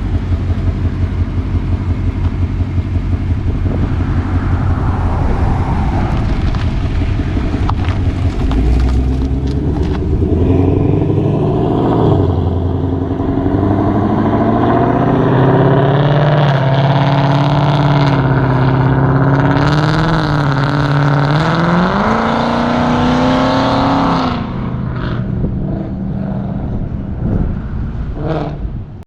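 Ford Mustang GT's 5.0 V8 exhaust with long-tube headers and active exhaust: idling with a steady pulsing note, then from about eight seconds in accelerating hard, its pitch rising and falling several times, before easing off at around twenty-four seconds.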